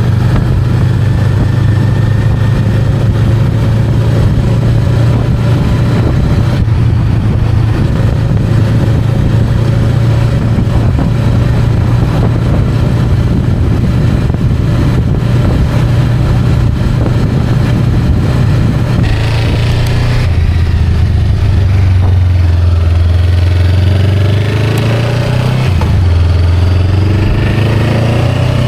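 Honda Rebel 500's parallel-twin engine running. It holds a steady note for most of the stretch, then changes pitch and climbs, with a brief drop in level like a gear shift near the end.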